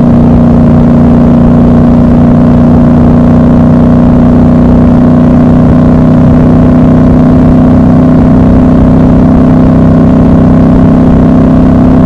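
Triumph Scrambler 1200 XC's 1200 cc parallel-twin engine running at steady revs while the motorcycle cruises at speed.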